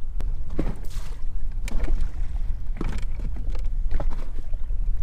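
Small waves slapping against the side of a small boat at irregular intervals, about once a second, over a steady low rumble of wind and water.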